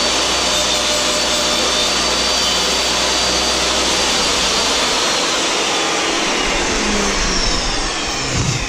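Table saw running steadily with a high whine while its blade cuts through a large-diameter PVC pipe held in a sled.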